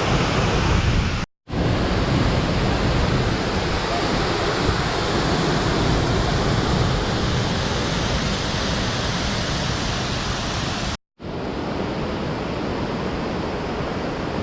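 Steady rush of falling water from a waterfall, broken twice by abrupt, brief drops to silence: once about a second in and once near the end.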